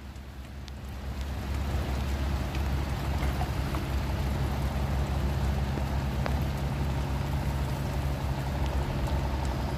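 Rain falling on the river's surface, a steady hiss that grows louder over the first second or two, over the steady low hum of an engine.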